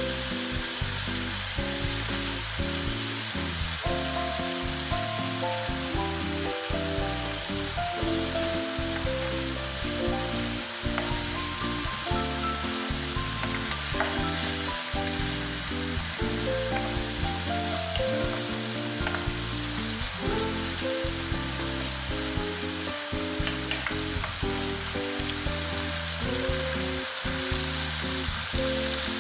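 Diced tomatoes, onions and black beans sizzling in oil in a frying pan, with a wooden spatula stirring through them now and then. Background music with a slowly stepping melody plays under the sizzle.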